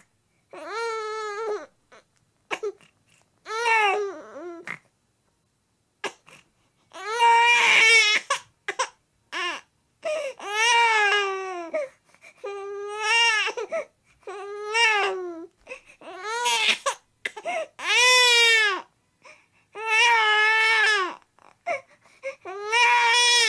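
A baby whining in a string of about a dozen short, high cries, each rising then falling in pitch, with brief silent gaps between them.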